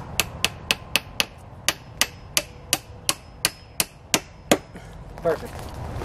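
Hammer driving a nail into wood, a steady run of strikes at about three a second that stops about four and a half seconds in.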